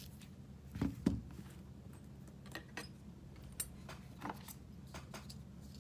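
Hands handling a phone box and its contents: two knocks about a second in, then scattered light clicks and rattles, over a steady low hum.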